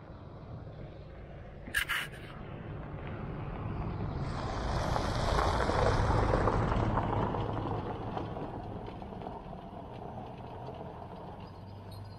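A Jeep drives past on a gravel road: engine and tyres on gravel growing louder to a peak about halfway through, then fading as it moves away. A sharp double click about two seconds in.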